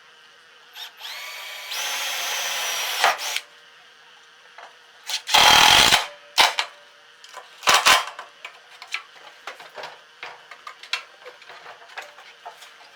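Power drill spinning up and running steadily for about two seconds, then a louder burst of about a second a little later, followed by a couple of sharp knocks and small clicks of metal handling.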